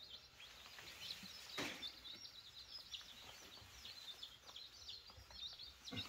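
Baby chicks peeping, a steady run of faint, high-pitched cheeps several times a second, with a soft knock about one and a half seconds in.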